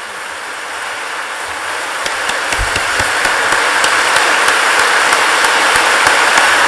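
Large audience applauding, the clapping swelling louder over the first few seconds and then holding steady.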